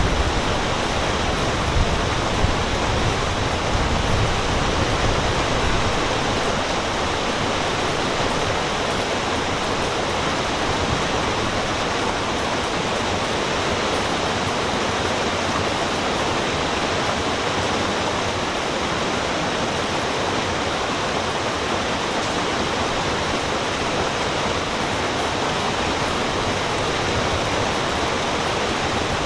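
Waterfall rushing steadily, with a little more deep rumble in the first few seconds.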